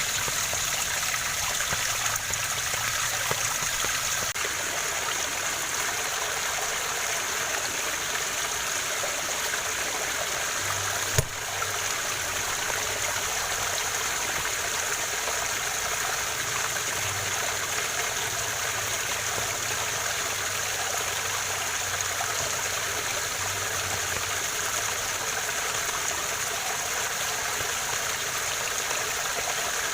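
Waterfall: a steady rush of falling water. A single sharp click sounds about eleven seconds in.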